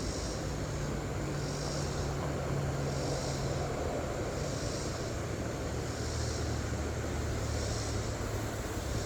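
A low, steady engine drone that shifts slightly in pitch about four seconds in. Faint high pulses repeat about every second and a half over it.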